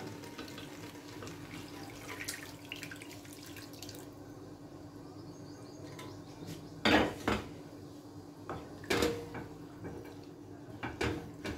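Chicken broth poured from a pressure cooker into a pan of rice and spices, a trickle of liquid, followed by a few sharp metal clanks of the cooker and spoon knocking against the pan about two-thirds of the way in.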